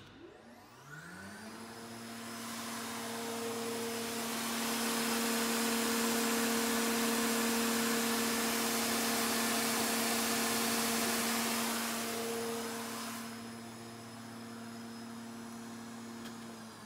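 Spindle motor of a Weinig Unimat 1000 four-sided moulder starting: a hum rising in pitch over about a second and a half as it spins up, then running steadily with a rushing hiss that swells through the middle and fades again. Right at the end the pitch begins to fall as the spindle is switched off and winds down.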